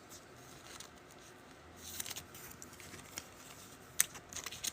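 Faint handling noises of trading cards: a soft rustle about two seconds in, then a sharp click about four seconds in and a few lighter clicks after it.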